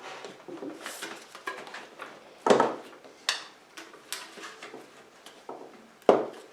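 Tight bicycle tyre being levered onto its rim with spoons: a run of small clicks, scrapes and rubbing, with two loud sharp knocks, one about two and a half seconds in and one near the end.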